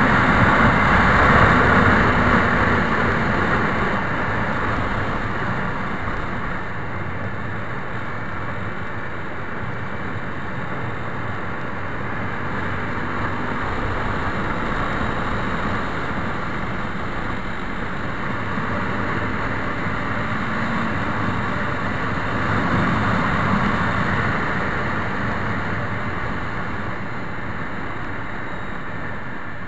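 Honda CBR250R motorcycle riding at road speed: its engine running under a heavy rush of wind, loudest at the start and easing somewhat as the bike slows.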